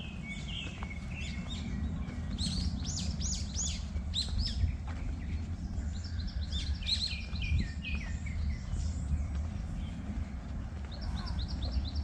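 Small birds chirping in quick, repeated short notes, with a fast run of chirps near the end, over a steady low rumble.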